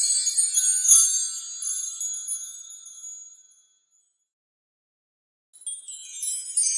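Wind chimes tinkling in a dense, high shimmer of many overlapping ringing notes, with a click about a second in. The sound fades away about three and a half seconds in, then after two seconds of dead silence starts again and builds.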